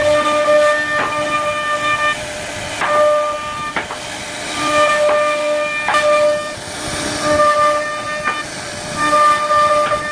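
CNC wood-carving router running, its spindle giving a high, pitched whine that holds for a second or two, breaks off and comes back again and again as the bit works the carving, with a few sharp clicks between.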